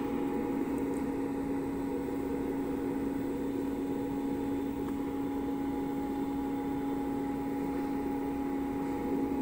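Portable ice maker running in its ice-making cycle: a steady machine hum with one constant tone.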